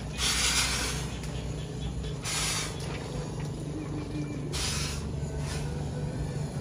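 Homemade fogging machine built from a hand pressure sprayer hissing in three short bursts about two seconds apart as it jets out fog, over a steady low hum.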